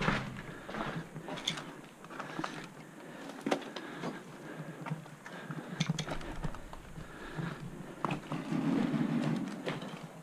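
Footsteps crunching over rubble and loose ground, with irregular clicks and rustles of the player's gear as he walks, thickening into a steadier rustle near the end.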